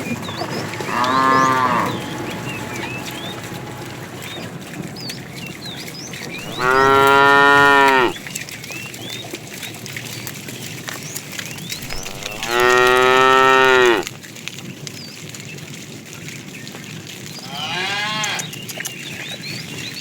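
Cattle mooing: four separate calls, a short one first, then two long loud moos of about a second and a half each, and a fainter one near the end.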